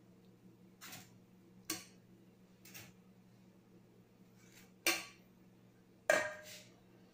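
Metal fork clinking against an aluminium bowl and roasting tray as boiled potatoes are lifted out and set down: about six irregular clinks, the last ringing briefly.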